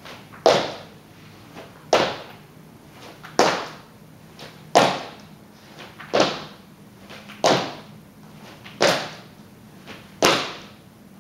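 Feet in sneakers landing from 180-degree squat jumps on a plank floor: a thud about every one and a half seconds, eight in all.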